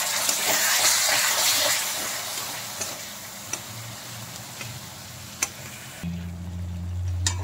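Spiced tomato-onion masala sizzling hard in hot oil in a kadai just after a splash of water, the sizzle fading over the next few seconds, with a few sharp taps of a metal spatula against the pan. A steady low hum comes in about six seconds in.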